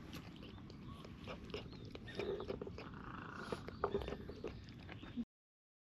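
Tortoiseshell cat lapping water from a stone fountain basin: a run of small, wet, irregular clicks of its tongue at the water. The sound cuts off suddenly near the end.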